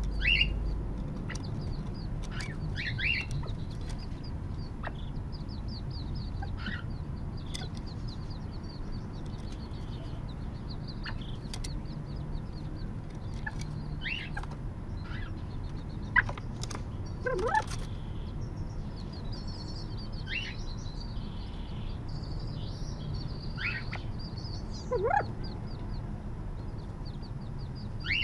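California quail chicks peeping in short high calls, scattered throughout, with a few lower falling calls from the adult quail, over fast trills of very high chirps and a steady low rumble.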